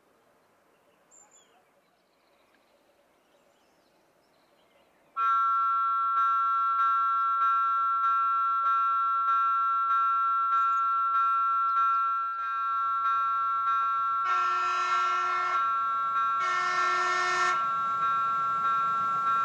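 A RENFE passenger train's horn sounds two blasts, about two seconds apart, as the train approaches. A bell-like warning ringing starts suddenly about five seconds in and strikes steadily about one and a half times a second under the horn.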